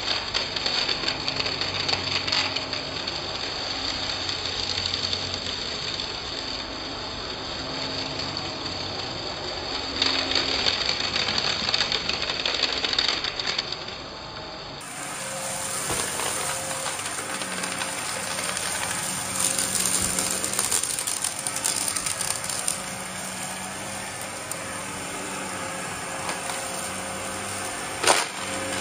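Shark upright vacuum cleaner running over carpet, its motor holding a steady tone while small debris crackles as it is sucked up into the bin. The motor's pitch shifts abruptly about halfway through, and there is one sharp click near the end.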